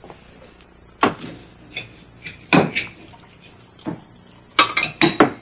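Household clatter: a string of sharp knocks and clinks, the loudest three coming close together near the end.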